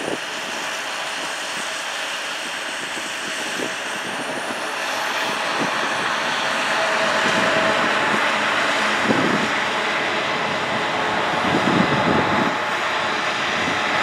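Heavy corn-harvesting machinery running steadily, a loud, even engine drone that grows somewhat louder around a third of the way in, with a couple of dull low thumps near the end.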